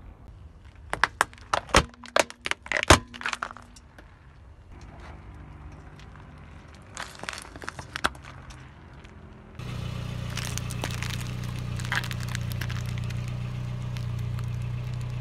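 Plastic toy quadcopter drone cracking and snapping under a car tyre: a quick run of sharp cracks starting about a second in, with a few more cracks a few seconds later. In the last third, a steady low car-engine hum with faint crackling.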